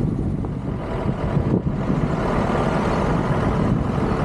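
Moving SUV's engine and road noise, a steady low rumble, heard from a camera held outside the vehicle's window.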